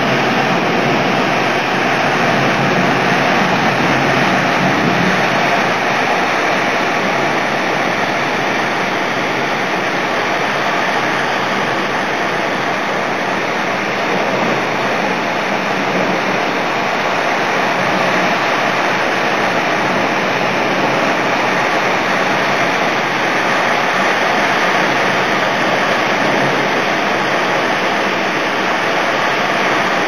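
A loud, steady rush of heavy thunderstorm rain pouring down.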